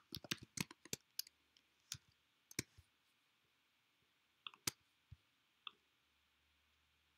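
Soft computer-keyboard typing: a quick run of keystrokes in the first second or so, a few more around two and a half seconds in, then a few separate clicks around five seconds in, after which it goes quiet.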